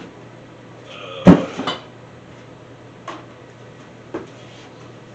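Metal engine parts or tools clanking as they are set down: one loud clank about a second in with a short rattle after it, then two light clinks.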